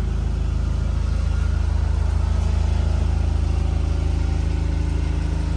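Motorhome's onboard generator running with a steady low drone.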